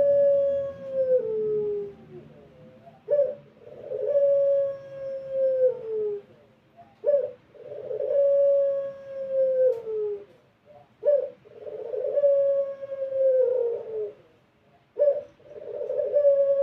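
Barbary dove (puter) of the long-voiced 'pelung' type cooing: a short clipped note followed by a long, drawn-out coo that drops in pitch at the end, repeated about every four seconds, four full calls.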